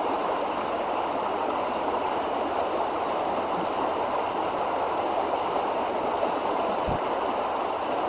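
River water rushing steadily over shallow rapids.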